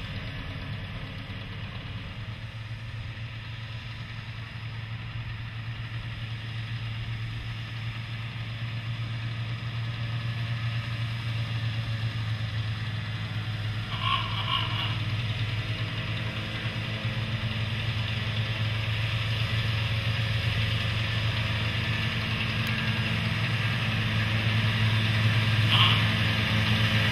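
Ruston diesel shunter's engine running with a steady low hum, growing louder as the locomotive approaches. Two brief higher-pitched sounds cut in, one about halfway through and a shorter one near the end.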